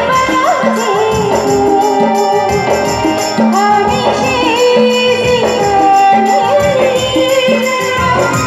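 Loud folk-style Indian music: a melody line that slides and bends in pitch over a steady rhythmic beat.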